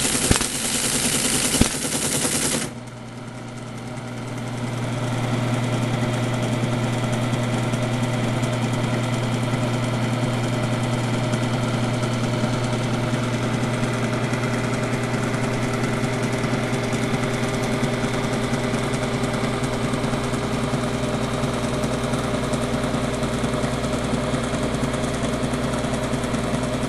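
Teletype Model 33 ASR running: a loud mechanical clatter with a couple of sharp clicks for the first few seconds, which stops abruptly. It then settles into the machine's steady, low motor hum and mechanism whir while it idles.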